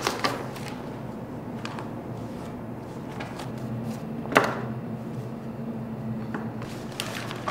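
Quiet room tone with a steady low hum and a few scattered clicks or knocks, the loudest about four and a half seconds in.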